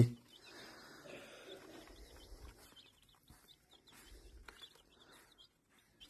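Naked-neck desi chicks peeping faintly: many short, high cheeps scattered throughout, with a few faint taps.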